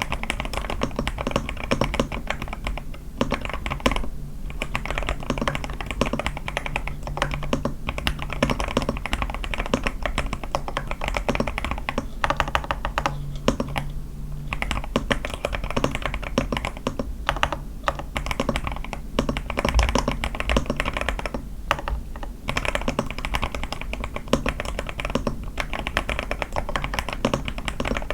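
Fast, continuous typing on an A81 mechanical keyboard built with lubed Sky switches, a tape mod and lubed stabilizers. The keystrokes run densely, with a few brief pauses.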